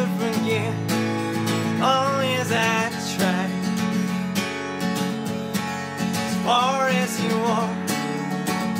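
Acoustic guitar played steadily in a folk song, with a voice singing a phrase about two seconds in and another near seven seconds.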